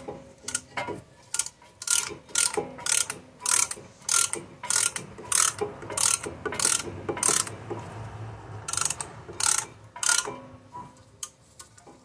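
A ratcheting hand tool being worked in quick back-and-forth strokes, a short burst of clicking about every half second with a brief pause about two-thirds of the way through, as the brake caliper pistons are pushed back into their bores.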